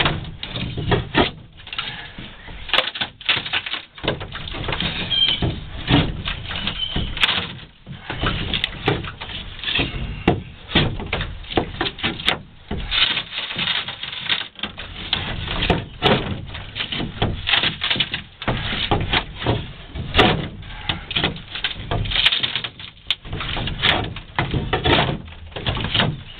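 Hand tool chipping, scraping and prying at the old plywood transom of a boat hull: a rapid, irregular run of knocks and scrapes on wood.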